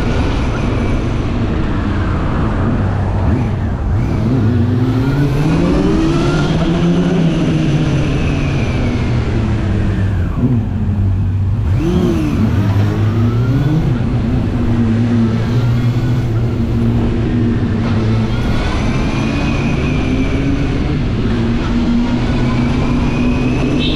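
Honda CB400 Super Four Revo's 399cc inline-four engine running through its stock exhaust. The engine note climbs over a few seconds, dips about ten seconds in, then climbs again and holds steadier toward the end.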